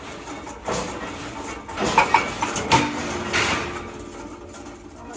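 Irregular metal clanks and knocks of workshop metalwork, several of them ringing briefly, the loudest about two seconds in.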